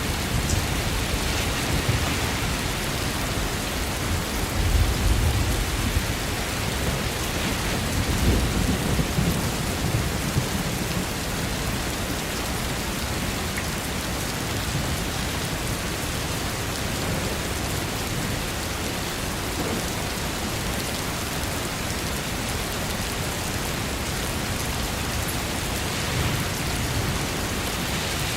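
Steady rain falling, with low thunder rumbling about five seconds in and again about eight seconds in.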